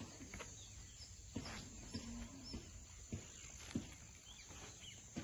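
Faint open-air ambience with a few small bird chirps and occasional soft knocks, like footsteps on the dirt.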